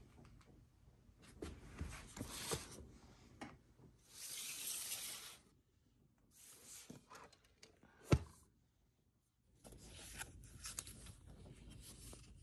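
Paper and packaging rustling, with light clicks and taps as an oil stick box set is handled. A sharp knock about eight seconds in is the loudest sound.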